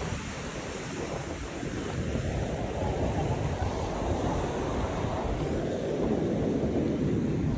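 Sea waves breaking and washing up the shore: a wash of surf that swells from about two seconds in and ebbs near the end, with wind rumbling on the microphone.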